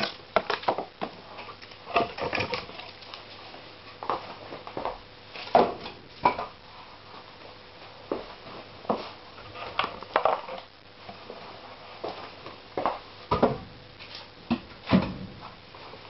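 Irregular sharp knocks and cracks, about one or two a second, some with a short ringing tone, at an open cast-iron wood-fired furnace.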